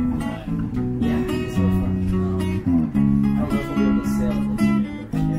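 Guitar music: strummed and plucked guitar over a line of held low bass notes that change every half second or so.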